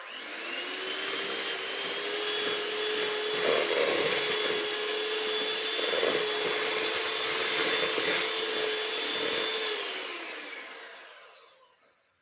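Electric kitchen mixer beating softened butter: the motor spins up at once, runs at a steady whine for about ten seconds, then winds down over the last couple of seconds.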